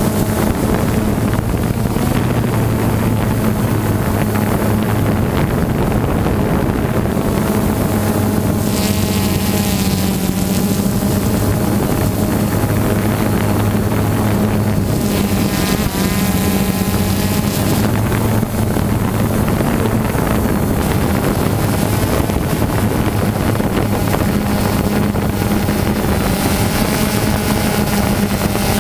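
Steady low motor drone with a constant hum and wavering overtones, like an engine running, mixed with wind on the microphone.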